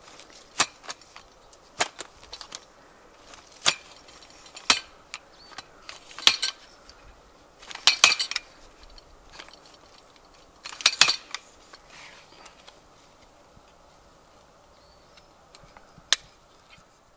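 Telescopic aluminium ladder being collapsed one section at a time, each section clacking down onto the one below: about eight sharp metallic clacks spaced irregularly one to three seconds apart, the last one near the end.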